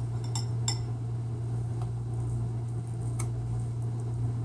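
A table knife clinking twice against a ceramic bowl under a second in while scooping tahini, then one more light tick about three seconds in as the tahini goes onto a rice cake. A steady low hum runs underneath.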